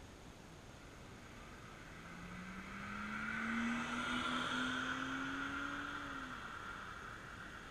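A car driving past, swelling and fading over a few seconds. Its engine hum rises slightly in pitch as it approaches and drops as it goes by, over the hiss of its tyres on the road.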